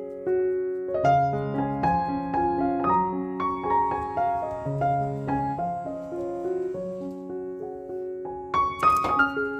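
Background piano music: a gentle melody over sustained bass notes. A short burst of noise sounds near the end.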